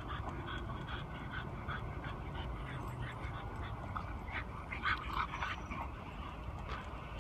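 Two puppies, a Chinese Shar Pei and a French bulldog, play-fighting, with many short yaps and whines in quick succession, the loudest a little after four seconds in.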